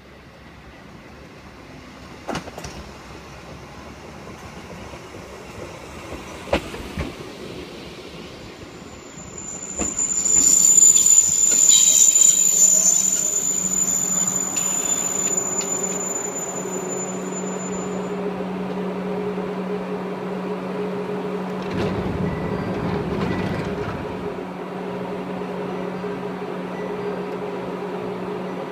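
A Chichibu Railway 1000 series electric train (ex-JNR 101 series) running into the station, its brakes giving a loud high squeal as it comes to a stop. It then stands with a steady hum of its onboard equipment, with a brief rush of noise partway through.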